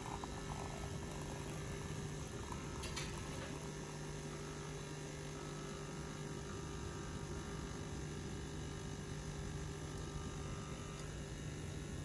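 Wonderchef Regalia 15-bar espresso machine's pump humming steadily while espresso pours into the cup, with a light tick about three seconds in.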